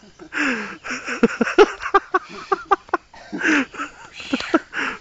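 Indistinct human voice: short bursts of muttering or vocalising with no clear words.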